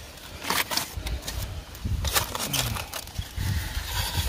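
Handling noise: irregular rustles and sharp clicks over an uneven low rumble as the phone is moved about.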